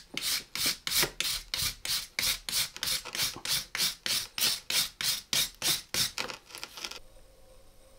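Hand wire brush scrubbing rust off a rusty iron sledgehammer head, steel bristles scraping in quick even back-and-forth strokes, about three a second, stopping about seven seconds in.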